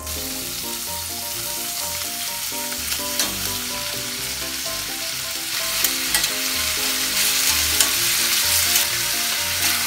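Pork shoulder pieces frying in butter in an enamelled cast-iron Staub braiser over a medium-high gas flame, a steady dense sizzle that grows louder about halfway through, with a few light clicks as the meat is turned with tongs.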